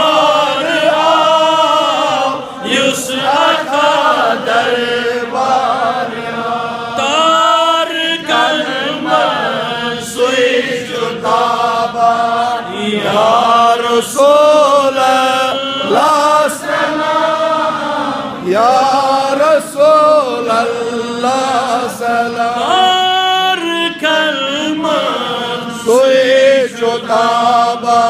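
A man chanting solo into a microphone, unaccompanied, in long drawn-out phrases whose held notes bend and waver in pitch, with short breaths between phrases.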